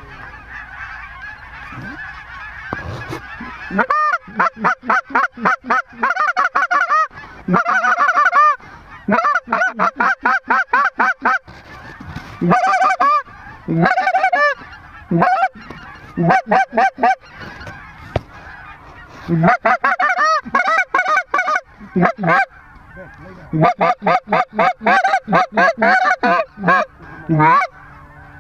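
Goose calls blown hard in fast runs of sharp, high honks and clucks, several notes a second in repeated bursts, calling to lesser Canada geese. Under the calls is a continuous chatter of many geese from the flock working overhead.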